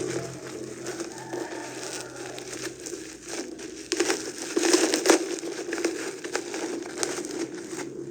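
Packaging crinkling and rustling in irregular bursts as it is handled and opened, loudest about four to five seconds in.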